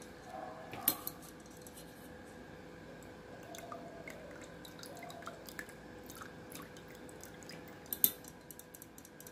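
Curry-leaf coconut oil dripping through a cloth and a fine steel mesh strainer into a steel pot, in soft scattered ticks. A sharp metal clink of the strainer on the pot comes about a second in, and a louder one near the end.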